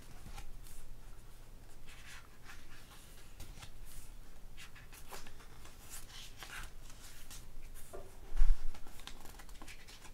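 Pages of a paperback album photo book being turned one after another, a run of short paper swishes and rustles. There is a single dull low bump about eight and a half seconds in.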